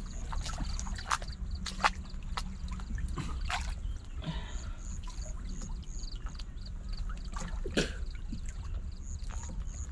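Muddy pond water sloshing and trickling around two men wading and groping for fish by hand, with scattered small splashes over a low steady rumble. Faint runs of high chirps come in twice, near the middle and near the end.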